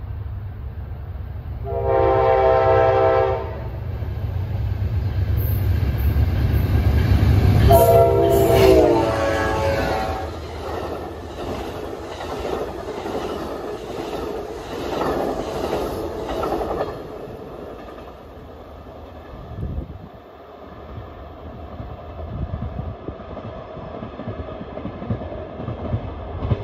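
Amtrak Coast Starlight passenger train led by a P42DC diesel locomotive sounding its horn in two blasts. The first is a loud chord of a little over a second. The second comes as the locomotive passes, its pitch dropping. The train then rumbles past with a clickety-clack of the passenger cars over the rail joints, easing off toward the end.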